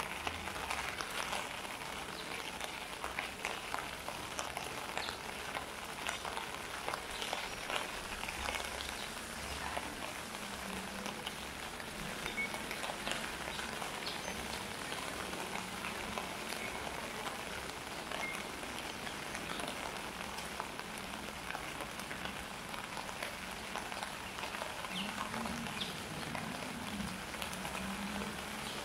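Steady rain falling, with many small drops and drips striking wet surfaces.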